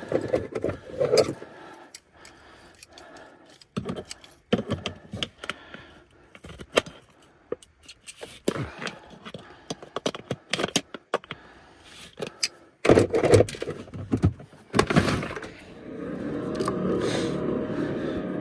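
Irregular metallic clinks, clanks and scrapes of small metal objects being handled, louder for a moment about 13 seconds in. About 15 seconds in, a steady motor hum starts.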